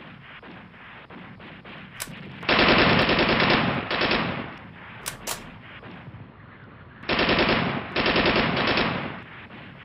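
Rapid automatic gunfire in two volleys, each of two bursts: the first about two and a half seconds in, the second about seven seconds in. A few sharp clicks fall between them.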